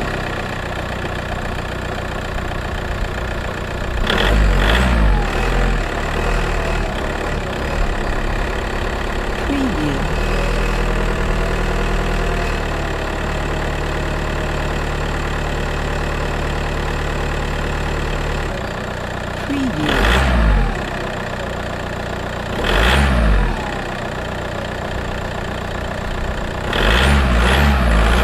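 Car engine recorded from the front of the car, idling steadily and revved hard several times: a long blip about four seconds in, two short ones past the middle, and another burst of revving near the end.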